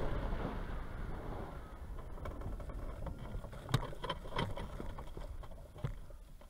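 Wind rush on a hang glider's camera dying away as the glider slows to a stop after landing, then a few sharp knocks and rustling as the pilot walks the glider over the grass; the loudest knock comes a little over halfway in.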